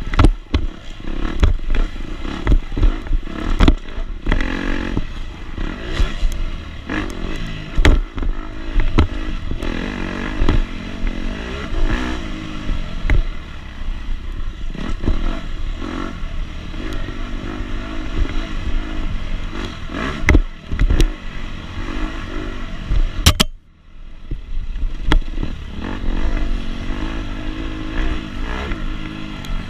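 KTM 250 SX two-stroke motocross bike under race riding, the engine revving up and down over and over. Repeated sharp knocks and clatter run through it, and the sound drops out briefly about two-thirds of the way through.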